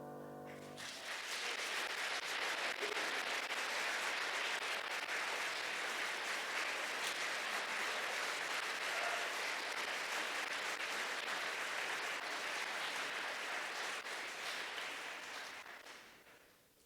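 The music's last held chord rings briefly, then an audience applauds steadily for about fourteen seconds before the clapping dies away near the end.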